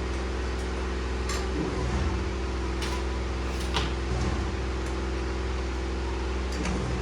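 Steady electric machine hum, like a fan or motor running, with a few light clicks about one, three and four seconds in.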